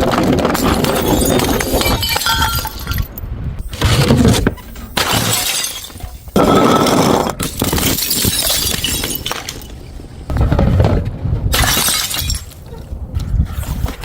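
Glass bottles smashing one after another, several crashes in a row, each followed by shards tinkling and crunching as they scatter.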